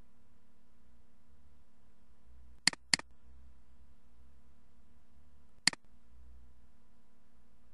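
Computer mouse button clicks: a quick double click about two and a half seconds in, then a single click near six seconds, over a steady low hum.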